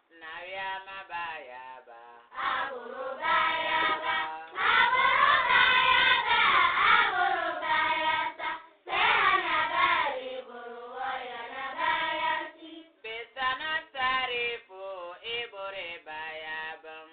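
Voices singing a chant-like devotional song. It swells in the middle, where several voices sing together loudest.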